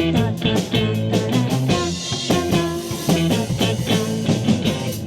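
Rock band playing an instrumental passage without vocals: electric guitar, bass and drums with a steady beat, stopping at the very end.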